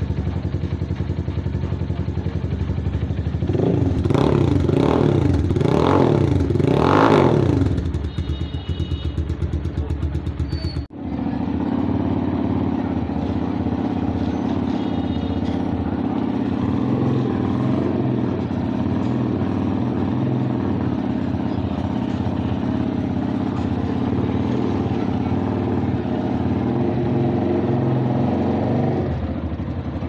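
Super Power GP 250 motorcycle with an aftermarket M4 exhaust idling, then blipped four times in quick succession and settling back to idle. After a cut about eleven seconds in, a Hi Speed SR 200 cruiser's engine idles steadily.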